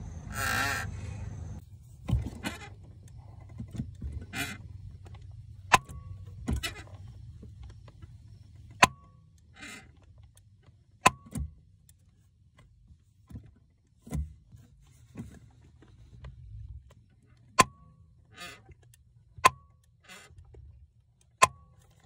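2006 Subaru WRX clutch pedal being worked, giving about seven sharp pops every two to three seconds with short creaky squeaks in between. These are the popping and squeaking of a cracked clutch/brake pedal assembly and a broken firewall at the clutch master cylinder mount.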